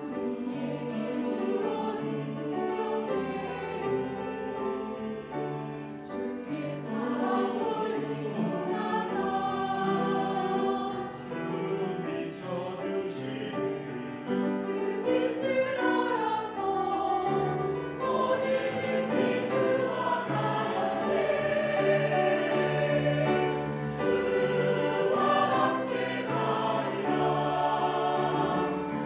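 Mixed choir of men's and women's voices singing a Korean hymn together, growing a little louder in the second half.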